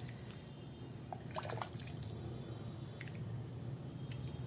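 Quiet background with a steady high-pitched whine over a low hum, and a few faint clicks.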